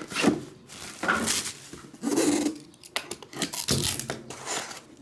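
Trading-card packaging being opened by hand: plastic wrap and card sleeves tearing, rustling and scraping in short uneven bursts.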